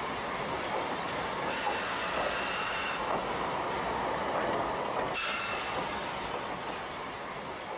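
Steady running noise of a train moving along the rails, a constant rumble and rattle of wheels on track.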